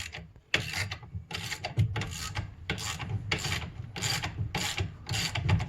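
Ratchet wrench with a 17mm socket being worked back and forth on the steering-wheel nut, a run of short rasping ratchet strokes about two a second.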